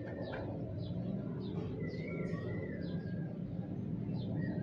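Birds chirping in the background: many short high chirps and a few longer, wavering whistles, over a steady low hum.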